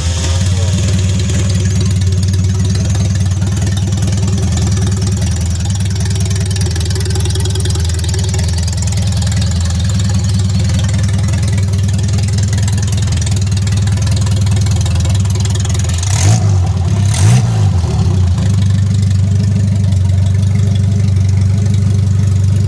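Freshly rebuilt Mini 850's 848 cc A-series four-cylinder engine running steadily on its first test run out of the car. It is revved briefly twice about sixteen seconds in, then settles back to idle.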